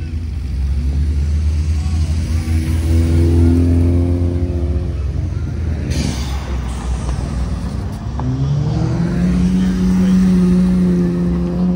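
Modified cars revving their engines through loud aftermarket exhausts: two long revs in which the pitch climbs and then holds, over a deep engine rumble. A short sharp noise comes about six seconds in.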